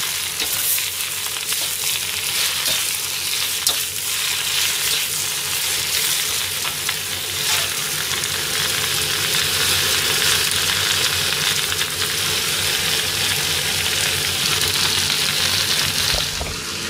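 Shredded cabbage and carrot stir-frying in a wok, a steady sizzle, with the metal ladle stirring and a few sharp clicks of metal on the pan.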